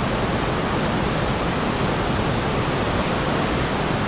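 Steady rush of water in a cave passage, an unbroken noise with no change in level.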